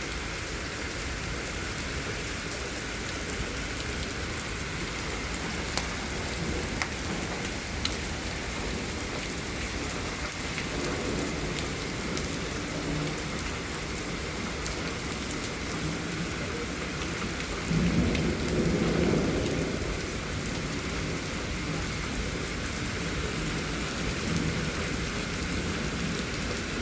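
Heavy rain falling steadily in a thunderstorm, with a low rumble of thunder about two-thirds of the way through.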